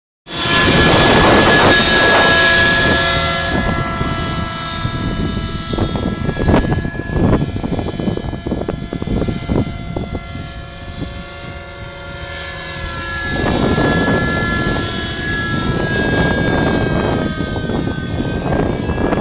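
Thunder Tiger Raptor 50 nitro RC helicopter flying flips: its engine and rotors make a steady high whine that wavers slightly in pitch. It is loud at first, fades as the helicopter moves off, and grows louder again about two-thirds of the way through.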